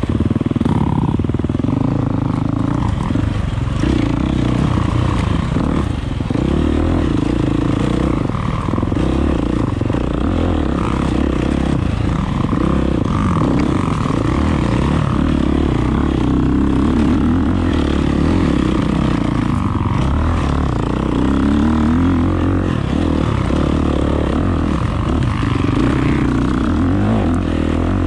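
A 2023 Husqvarna FX350's 350cc four-stroke single-cylinder engine running under load off-road, its note rising and falling with the throttle.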